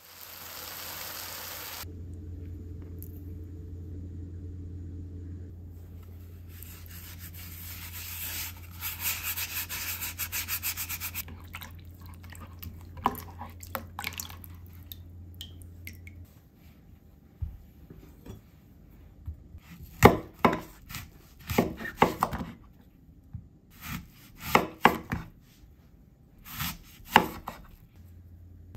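Brief sizzling of apple slices frying in butter, then an apple being scrubbed by hand with salt in a bowl of water in quick, rhythmic rubs. Near the end a knife cuts an apple into rounds on a wooden cutting board, with a run of sharp knocks as the blade meets the board.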